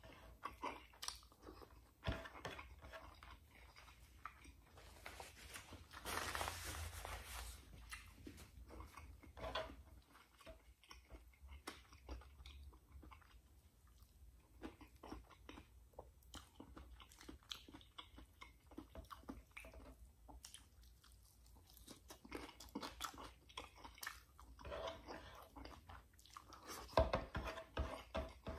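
A man chewing close to the microphone, eating fried milkfish and rice by hand: crunching and wet mouth clicks. A longer rushing noise comes around six seconds in, and a louder run of crunches near the end.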